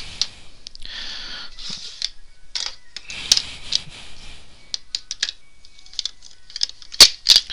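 Plastic Bedlam cube puzzle pieces clicking and clattering as they are handled and fitted together, with some rustling. Two sharper knocks come near the end.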